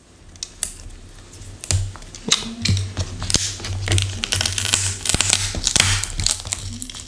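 Irregular crackling and tearing of adhesive tape as a laptop battery is peeled and pried up off its double-sided tape, with scattered plastic clicks.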